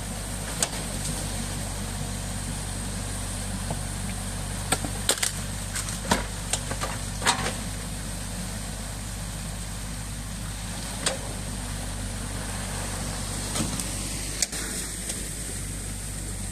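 New Holland Kobelco E 50.2 C mini excavator's diesel engine running steadily as the bucket works in the breach of a beaver dam, with sharp knocks and cracks scattered through, thickest in the middle, over water rushing out through the breached dam.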